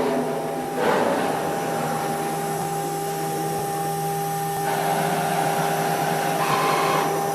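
Five-axis CNC router running, its spindle giving a steady whine over a rushing noise. The tone shifts about a second in and again about halfway through.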